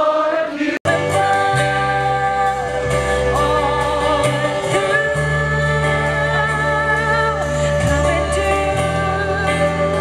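Gospel-style worship song: voices singing a slow melody over held low instrumental notes. It breaks off sharply for an instant under a second in, then carries on.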